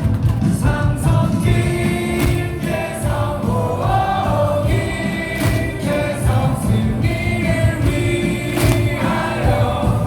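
Baseball stadium crowd singing a batter's cheer song together over loudspeaker music.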